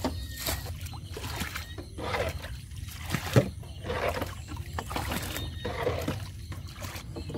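Water being bailed out of a wooden boat with a hand scoop: repeated splashes about once a second as each scoopful is thrown over the side, with a sharp knock of the scoop against the hull a little over three seconds in.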